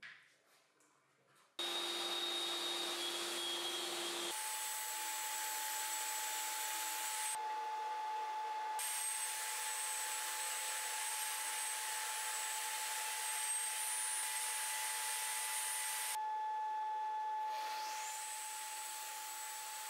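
Bench table saw running steadily with a high motor whine. The tones shift abruptly a few times.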